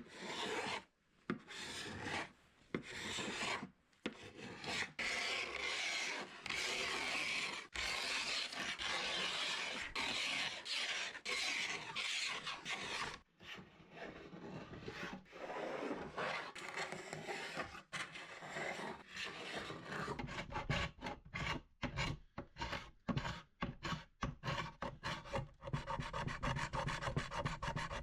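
Hand tool rasping and rubbing across oak wood: long strokes at first, then quick, short back-and-forth strokes from about halfway, as old finish is worked off the cabinet.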